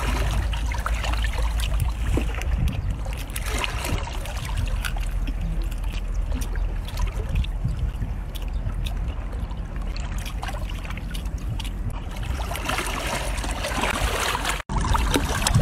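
Wind rumbling on the microphone, over wet chewing and slurping with small cracks and clicks as lobster shell and meat are pulled apart by hand and mouth. The sound drops out briefly near the end.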